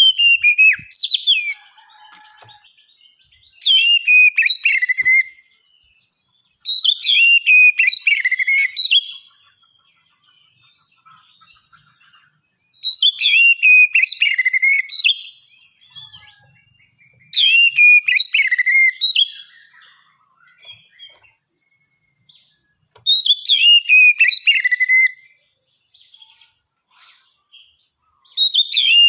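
Oriental magpie-robin (kacer) singing loud whistled phrases about two seconds long. Each phrase slides down from high notes to lower ones, and they repeat every four to six seconds with short quiet pauses between.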